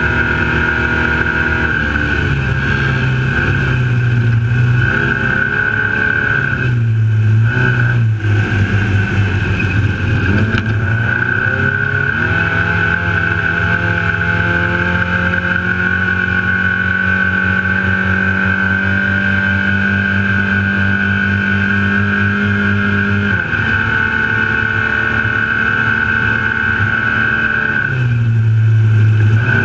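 Off-road race truck's engine running hard under load, heard from the hood. Its pitch steps up and down with the throttle, holds steady through the middle, and drops sharply about three-quarters of the way in. A steady high whine runs over it throughout.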